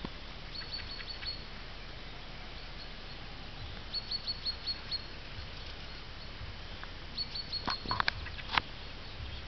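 A small bird singing: three short runs of quick, high chirps, over a faint steady hiss, with a few sharp clicks near the end.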